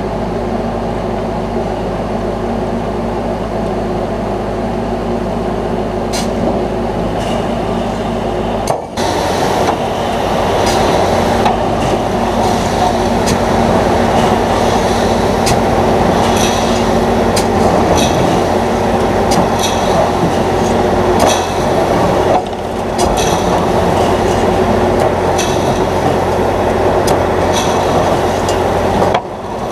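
John Deere 9500 combine running in a corn field: a steady, loud machine din with a constant low hum and scattered rattles and clicks. It steps up abruptly about 9 seconds in and breaks briefly twice near the end where the footage is cut.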